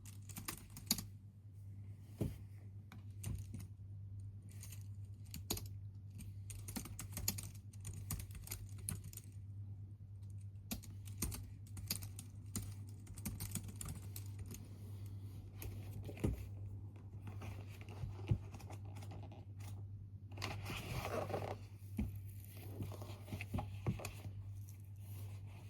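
Typing on a computer keyboard: irregular runs of keystrokes over a steady low hum, with a second or so of denser noise about twenty seconds in.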